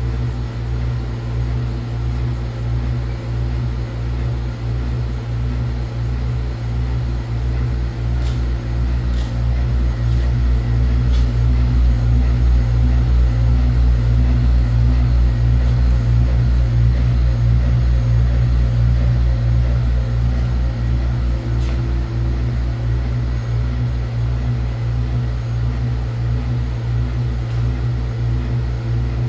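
Industrial quilt and blanket washing machine running: a steady heavy low hum and rumble with a fast even pulse. It grows louder about ten seconds in and eases a little after about twenty seconds, with a few faint clicks along the way.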